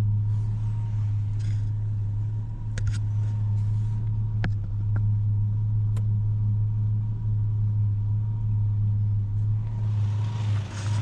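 Ford Ranger pickup engine idling steadily at a very low idle, a deep, even hum, with its speed pulled down by the scan tool's engine self-test. It is running so low that it seems almost to want to die. A few faint clicks sound in the background.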